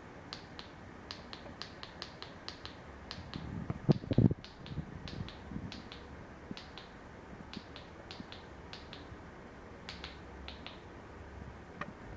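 Remote control buttons being pressed over and over, short sharp clicks at about two to three a second while the file list is scrolled, with a louder dull knock about four seconds in.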